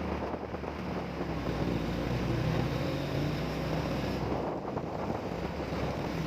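Small motorcycle engine running steadily while riding, with wind buffeting the microphone.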